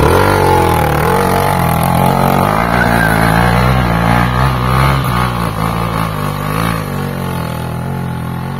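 Off-road motorcycle engine revving and labouring as the bike is ridden across a rough, muddy trail section, the pitch rising and falling with the throttle. The engine grows fainter near the end.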